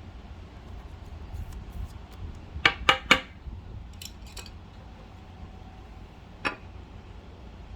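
Handling of trading cards: three sharp clicks in quick succession about two and a half seconds in, a few faint ticks after, and one more click near the end.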